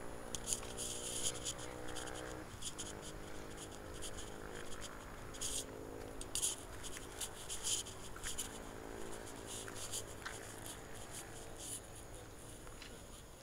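A low, steady droning hum with several pitches that shifts about two and a half seconds in, with scattered sharp high-pitched clicks throughout.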